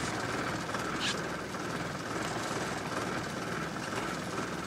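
Boat engine running steadily, a constant mechanical drone with a faint steady whine, with one brief click about a second in.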